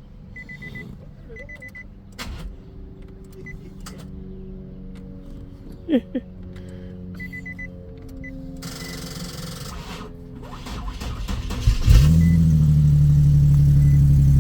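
The 2014 Nissan 370Z's 3.7-litre V6 is restarted: a car warning chime beeps in short runs, with a couple of sharp clicks midway. Then the engine cranks and fires about twelve seconds in and settles into a loud steady idle. The no-start has been traced to a weak battery.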